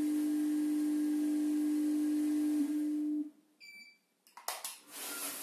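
A long, steady electronic beep from the weighing and filling machine's controller, the tone it gives when the set weight is reached. It stops a little under three seconds in and is followed by short high chirps and a few faint clicks.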